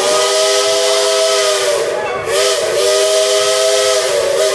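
A steam locomotive's chime whistle blows two long blasts, a chord of several notes over a rush of steam hiss. The pitch dips briefly in the short break between the blasts.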